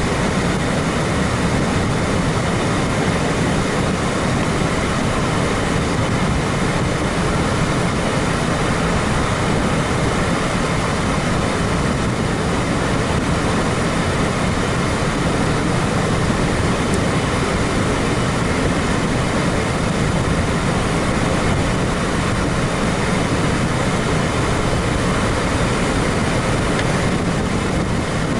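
Freight train of covered hopper cars rolling past on the rails, a steady, unbroken rumble.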